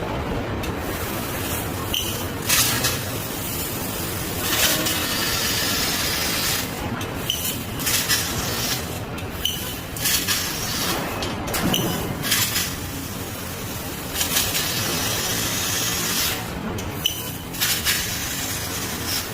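CNC laser cutting machine at work: a steady hiss, broken every second or two by louder bursts and brief dips.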